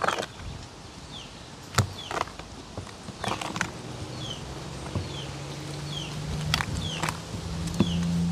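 Metal spoon stirring flour into a wet spiced batter in a mixing bowl, with irregular knocks and scrapes of the spoon against the bowl. A bird repeats a short falling chirp, and a low steady hum comes in about halfway.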